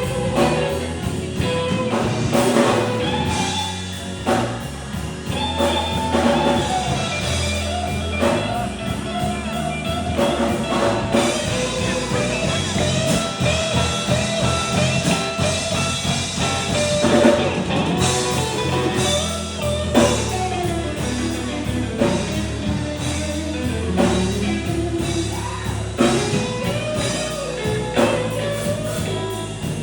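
Live rock band playing an instrumental passage, with drum kit, steady bass notes and a wandering guitar melody line.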